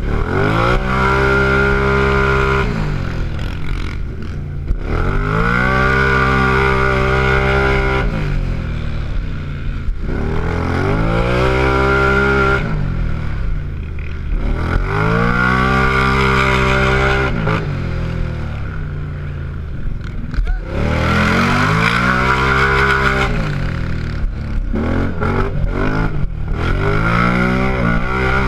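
Race ATV engine at full throttle, heard from a camera mounted on the quad: it revs up, holds high and drops back about six times as the rider accelerates and backs off for the turns.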